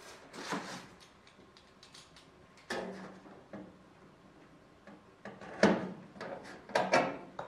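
Cleco temporary fasteners being fitted into drilled holes in thin aluminium aircraft skin: scattered sharp clicks and light metallic taps, a few seconds apart, with the loudest near the end.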